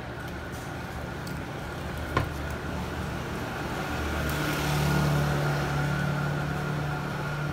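Street traffic noise, with a click about two seconds in. A motor vehicle's engine hum swells from about four seconds in, is loudest near five seconds, then eases off as it passes.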